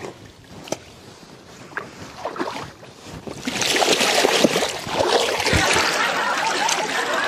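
Clothes being washed by hand in shallow water: a few small splashes and drips, then about three and a half seconds in, loud continuous splashing as a cloth is thrashed through the water.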